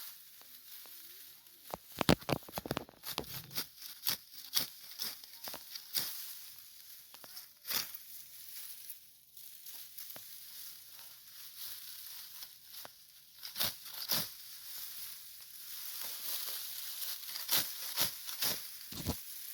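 Dry wheat stalks rustling and snapping as they are handled by hand, with irregular sharp crackles over a steady hiss. The crackles are loudest about two seconds in.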